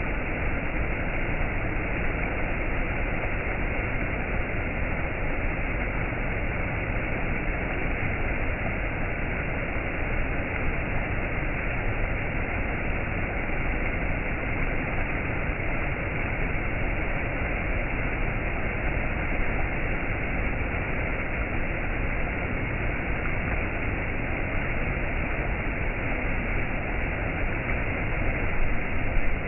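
Waterfall: falling water rushing in a steady, unbroken stream of noise.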